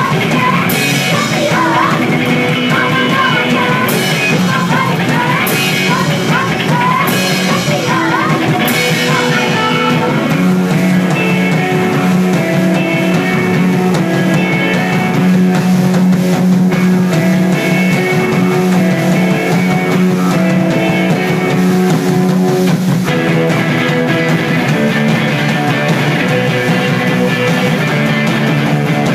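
Punk rock band playing live, heard through a phone's microphone: two singers on vocals over electric guitar, bass and drums with repeated cymbal crashes for about the first ten seconds. Then the singing drops out for an instrumental stretch of held bass and guitar notes, before the full band picks up again near the end.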